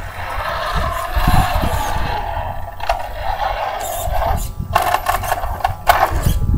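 Traxxas Slash 4x4 VXL RC truck's brushless motor and drivetrain whining, its pitch rising and falling with the throttle, as the tyres scrabble over dirt. Sharp clicks and crunches of dirt and gravel come in about four and a half seconds in, as the truck nears.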